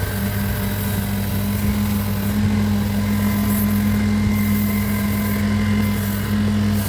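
Electric motor of a woodworking machine running steadily with a deep, even hum, a hiss over it rising and falling.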